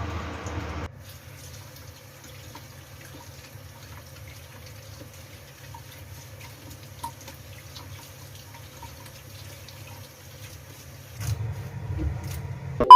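Water from a kitchen tap running into the sink stops about a second in, leaving faint drips and small clicks over a low hum. Louder handling sounds follow near the end, and a loud steady beep cuts in at the very end.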